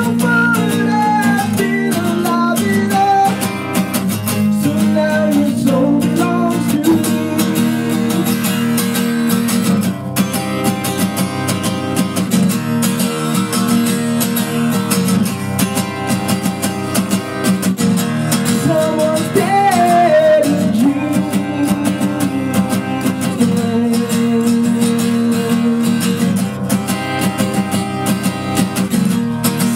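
Acoustic guitar strummed steadily, with a man singing over it in stretches, near the start and again about two-thirds of the way through.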